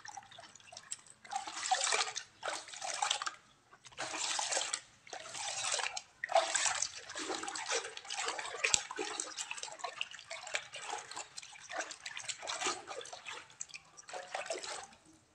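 Hands squeezing and swishing clay in a bucket of muddy water: irregular splashing and squelching that comes in bursts with short pauses.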